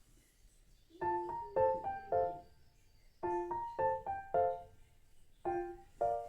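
Background music: a gentle piano melody in short phrases of a few quick notes each, starting about a second in, with brief pauses between phrases.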